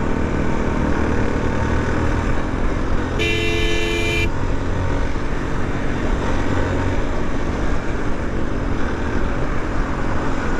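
Steady motorcycle engine and road noise while riding, with a vehicle horn honking once for about a second, a little over three seconds in.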